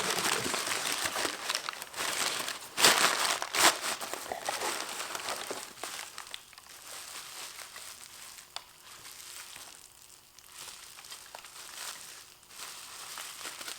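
Cardboard box and its packing being opened by hand: crinkling and tearing, with two sharp louder rips about three seconds in, then softer rustling and handling.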